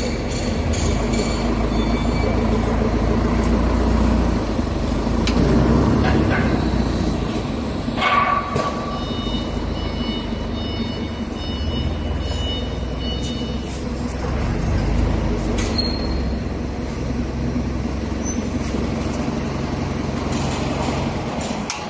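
Welding arc on a beer keg handle, a steady crackling hiss over a low electrical hum, which stops at the very end.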